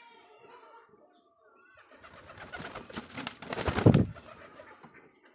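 Pigeon's wings flapping as it flies from the perch, a dense rush of wingbeats that builds from about two seconds in to a loud peak near four seconds, then dies away.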